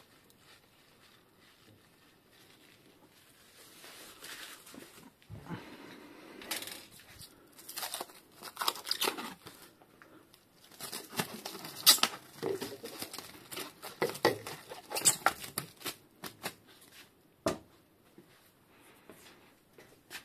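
Clear plastic stretch film pulled off a roll and wound around the bicycle fork's stanchions, crinkling and tearing in irregular bursts that start about four seconds in, with one sharp click near the end.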